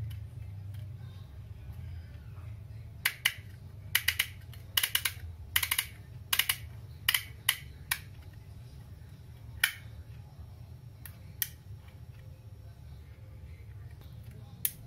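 Motex handheld embossing label maker clicking as its lever is squeezed to press letters into the plastic tape: a run of sharp clicks, several in quick pairs, then a few spaced-out single clicks.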